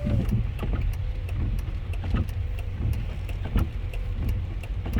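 Car running at low speed: a steady low engine and road rumble, with light ticks about three times a second.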